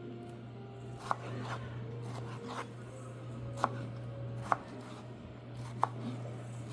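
Kitchen knife cutting vegetables on a cutting board: a few sharp, irregular knocks of the blade meeting the board, with softer slicing sounds between.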